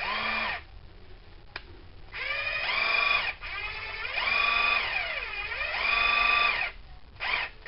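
AEG BSS 12 C 12-volt cordless screwdriver running with no bit fitted, in three bursts: a brief one, then two runs of a couple of seconds each. The motor whine rises in pitch as it spins up, dips and recovers partway through the last run, and falls as it winds down.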